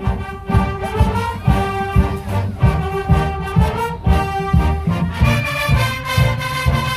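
Marching band playing, brass section on sustained notes over a steady beat of bass drums.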